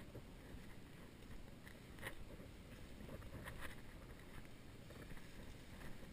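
Footsteps on a sandy path, heard as a few faint irregular scuffs, over a low wind rumble on the microphone.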